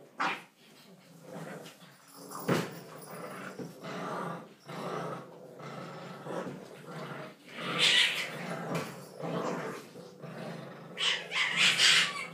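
English bulldog puppies play-fighting and vocalising in short bursts, loudest about eight seconds in and again near the end.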